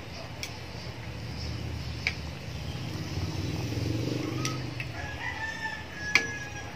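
Metal ladle clicking and scraping against a pan as chicken simmering in a thick tomato sauce is stirred, a sharp tap every second or two. Near the end a long call held at one pitch sounds in the background.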